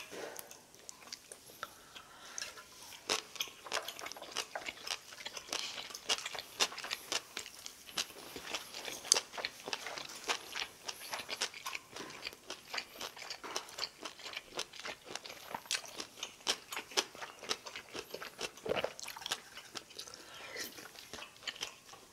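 Close-miked chewing of a mouthful with crisp, rapid crunching: crunchy julienned radish salad and garlic eaten with grilled beef.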